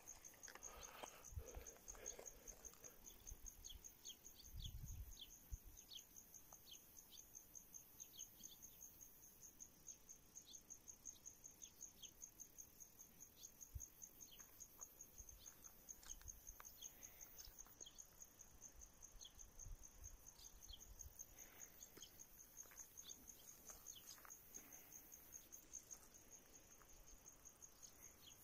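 Faint outdoor ambience of crickets chirping in a steady, fast, even pulse, with scattered short bird chirps over it. A few soft low handling thumps come in the first few seconds.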